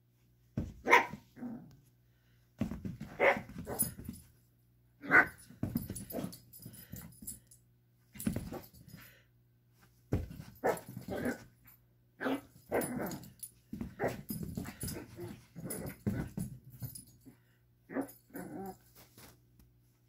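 Puppy giving gruff, growly little barks ('gerruffing') in short bursts every second or two as it plays.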